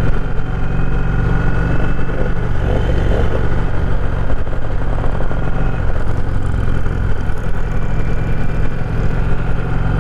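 Motorcycle engine running steadily at cruising speed, with wind noise over the microphone.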